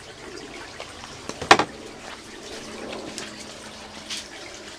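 A single sharp knock about a second and a half in, over a steady background hiss with a low hum; a few fainter clicks follow.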